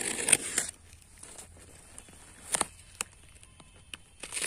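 Utility knife cutting through the packing tape of a cardboard parcel: a scratchy cut in the first second, then a few sharp crackles of tape and cardboard.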